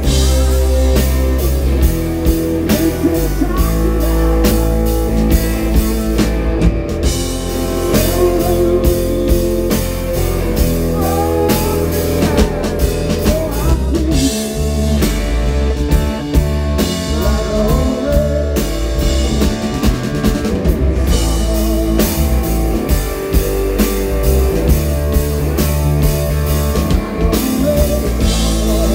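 Live rock band playing: electric guitar lines with bends over drum kit and bass, continuous and loud.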